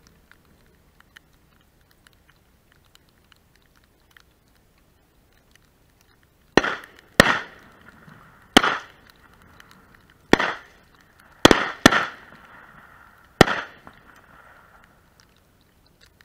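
After a few quiet seconds, shotguns open fire on ducks: seven sharp shots spread over about seven seconds, two of them close together near the end, each with a short fading tail.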